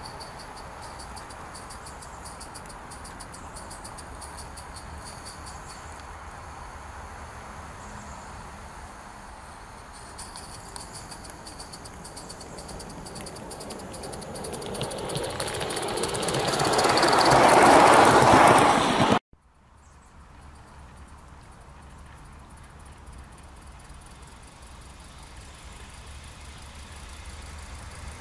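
Gauge one live-steam GWR tank engine running on its track, the clatter of its wheels and its exhaust growing louder as it draws close, then cut off abruptly about two-thirds of the way through; after that it runs on more softly, farther off. Crickets chirp faintly in the first part.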